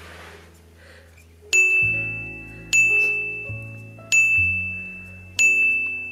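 Background music: a bright bell-like chime strikes about every second and a quarter from about a second and a half in, each ring fading, over a soft low bass line.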